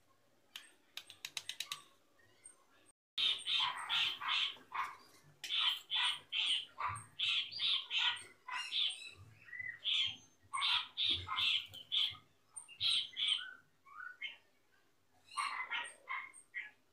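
Birds chirping in quick, repeated short calls, starting abruptly about three seconds in and coming in clusters. A quick run of sharp clicks comes about a second in.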